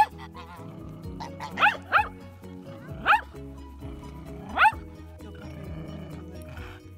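A dog barks four times over background music: two quick barks close together, then one more a second later and a last one about a second and a half after that. Each bark is short, loud and rises in pitch.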